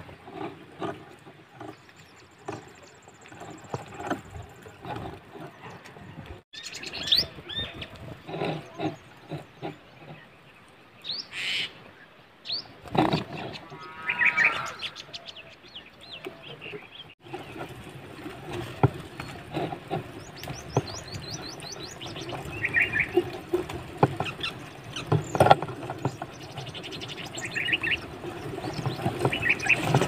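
Small birds chirping in short calls and quick trills on and off, over a crackle of rustling dry grass and leaves.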